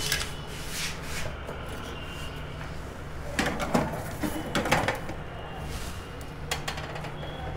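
A metal baking tray being slid into an oven, in a few clusters of clanks and scrapes against the oven's rack.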